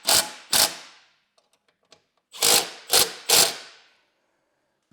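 A tool driving the screws that fasten a floorboard screen: five short bursts, two near the start and three more after about two and a half seconds.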